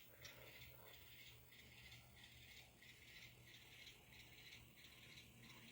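Near silence with faint, evenly spaced clicking from an N-scale model train as the switcher and its cars roll along the track.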